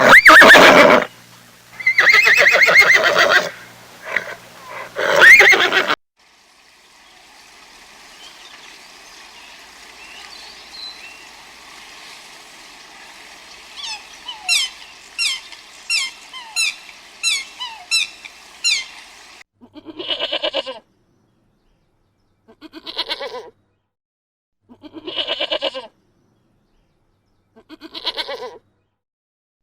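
A sequence of farm-animal calls. It opens with three loud horse whinnies. After a quiet stretch comes a run of about ten quick, high chirps, and then four separate bleats, one about every two and a half seconds.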